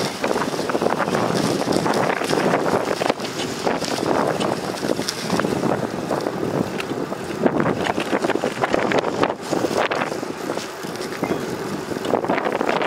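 Wind buffeting the microphone of a camera riding on a moving bicycle: a steady rushing noise that rises and falls in gusts.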